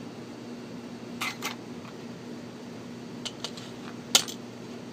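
Light metallic clicks and ticks as the small pins and parts of a disassembled euro cylinder lock are handled and taken out of its plug: a pair of clicks about a second in, a couple more near three seconds, and a sharper one about four seconds in. A steady low hum runs underneath.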